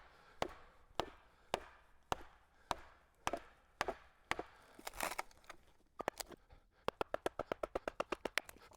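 Mallet striking the back of a froe to split shakes from a cedar block: steady blows about two a second, then a quick run of faster, lighter taps near the end.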